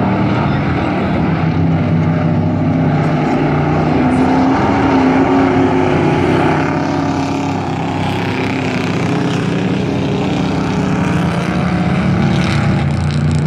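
Engines of five dirt-track race trucks running hard at racing speed, a steady loud drone whose engine notes shift in pitch as the trucks accelerate and lift around the oval.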